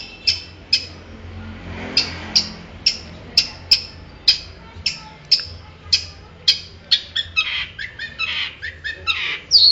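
Long-tailed shrike (cendet) calling in a string of short, sharp, harsh notes, about two or three a second, turning into a quicker, denser chatter in the last few seconds.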